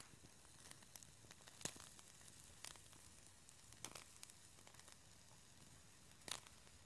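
Beef chuck-flap steak searing on a wire grill over charcoal: a faint sizzle with a few scattered sharp pops and crackles, the loudest about six seconds in.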